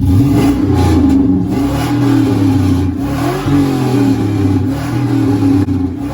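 Pickup truck engine revved through a new exhaust with large 8-inch tips: a loud, deep exhaust note whose pitch rises and falls with several throttle blips.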